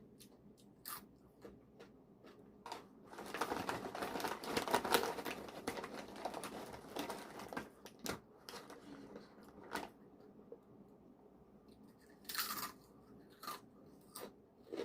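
Crunchy spicy balado-flavoured snack chips being bitten and chewed close to the microphone: scattered sharp crunches, with a longer stretch of dense crackling a few seconds in.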